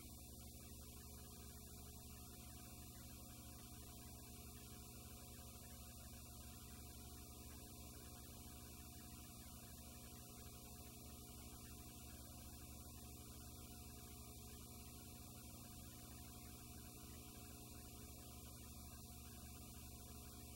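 Near silence with a steady electrical mains hum and faint hiss.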